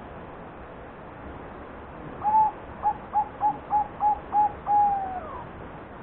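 Zebra dove (perkutut) singing one cooing phrase: an opening note, six short quick notes, then a longer closing note that slides down in pitch.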